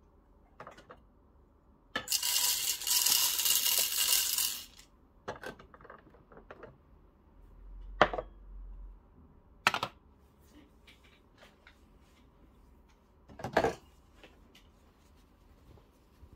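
Whole coffee beans poured from a small bowl into the Breville Barista Pro's grinder hopper, a hard rattling patter of about three seconds. It is followed by a few separate clicks and knocks as the machine and portafilter are handled.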